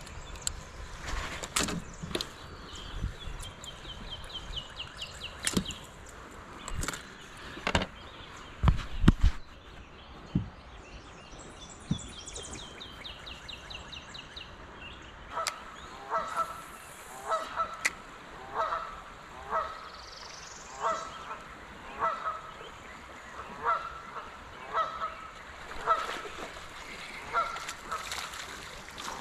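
A goose honking over and over, about one call a second, through the second half. Before that come scattered sharp knocks and bumps and a couple of short high bird trills.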